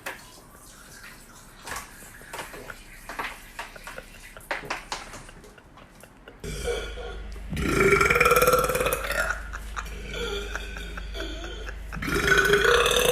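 A man belching: a long, loud burp about halfway through and a second loud burp near the end, with quieter rumbling between them. Before these, only faint clicks and taps.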